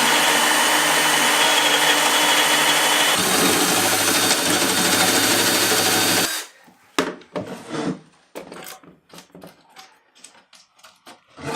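Power drill boring a hole through the wood of a box, running steadily for about six seconds, its tone shifting about halfway through, then stopping. A few light knocks and clatters follow.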